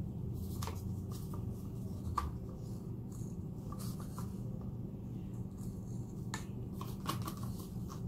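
Scattered light clicks and taps of plastic paint bottles and cups being handled while acrylic paint is added to a pour cup, over a steady low hum.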